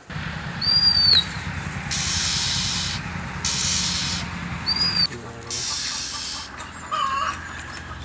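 Scops owl owlets in a cage giving raspy hissing calls, three in a row, each about a second long.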